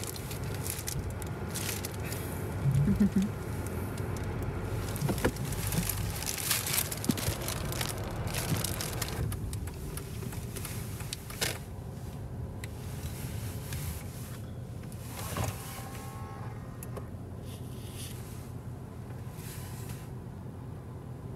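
Steady low engine and road hum heard inside a Mercedes-Benz car's cabin, with scattered short clicks and rustles over it.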